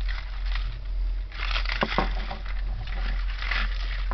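Jewelry being rummaged and sorted by hand: a scratchy rustle full of small clicks and rattles from chains and beads, busier from about a second and a half in.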